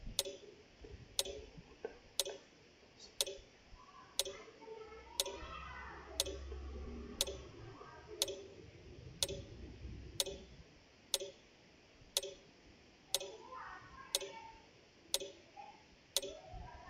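Clock ticking steadily, about one tick a second.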